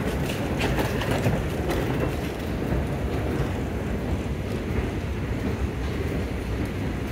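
Escalator running with a steady mechanical rumble, with a few sharp clicks in the first two seconds.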